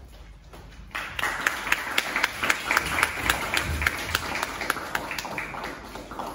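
Audience applauding, breaking out suddenly about a second in and fading near the end.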